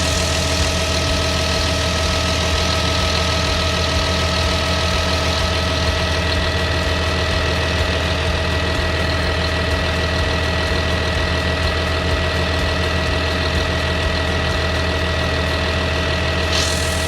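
Diesel engine of a Volvo EC300DNL tracked excavator running steadily at idle, with a thin, steady high-pitched whine over it. A short hiss swells near the end.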